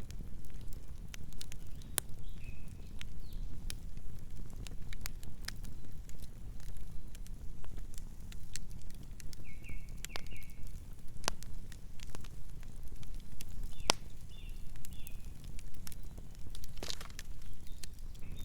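Wood campfire burning, with frequent irregular crackles and pops over a steady low rumble of the flames. A few short high chirps sound now and then.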